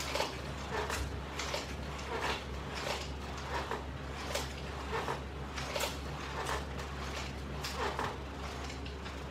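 Rhythmic swishing, about three every two seconds, from fast repetitions of a side crunch on a resistance-band strap, over a steady low hum.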